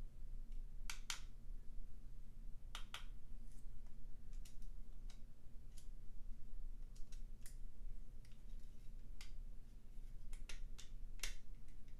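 Scattered small clicks and taps, irregularly spaced, of a plastic model locomotive shell and chassis being handled and fitted together, over a steady low hum.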